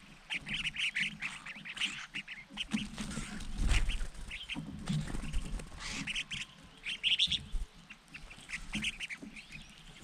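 A flock of crested finchbills calling, with short harsh chattering notes in repeated bursts. A low thud and rustle stands out about three and a half seconds in.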